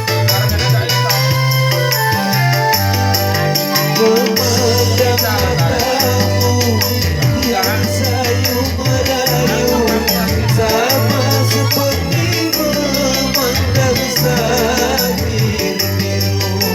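Music from a song cover: a bass line that moves in steps under melodic parts, with percussion keeping a steady beat.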